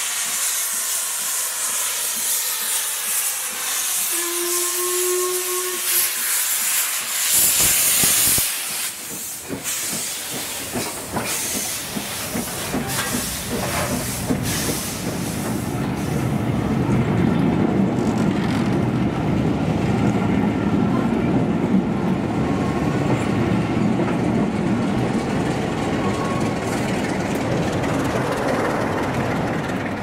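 A train at the railway: a steady loud hiss, then a short warning note from the train about four seconds in. A loud burst follows a few seconds later, and from about halfway a heavy rumble builds as the train moves past.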